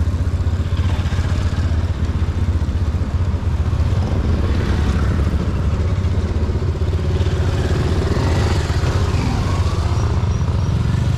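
Motorcycle running along the road, with a heavy, steady wind rumble on the microphone.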